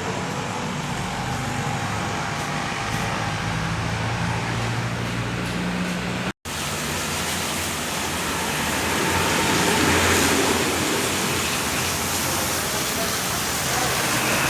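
Car engine idling with a steady low hum. After a brief cut a little over six seconds in, a louder steady hiss of water spray cleaning the air-conditioning condenser joins it.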